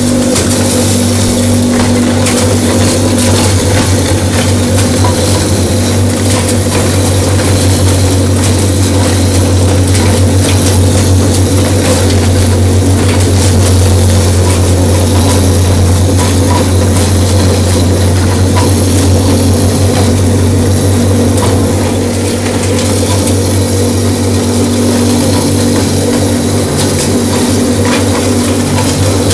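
Electric grain crusher (drobilka) running steadily while grinding shelled corn: a loud, steady low hum from the motor with a constant fine crackle of kernels being smashed by the blades.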